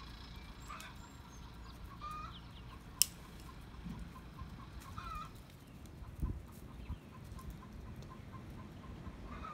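Roosters giving short clucking calls, one every couple of seconds, with a single sharp click about three seconds in.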